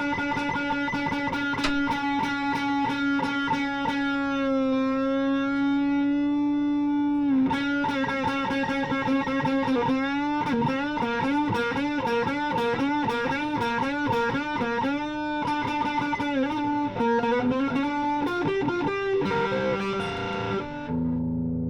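Gibson Les Paul Tribute electric guitar on its bridge pickup through an Orange Crush 12 amp, playing distorted single-note lead lines with long sustained notes, string bends and vibrato, ending on lower notes.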